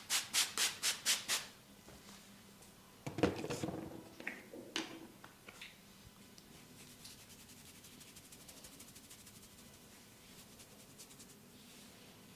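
Hands rubbing and patting skin and hair during a head and neck massage. A quick run of about seven strokes comes in the first second and a half, then a louder, fuller rub about three seconds in, then fainter fast rubbing.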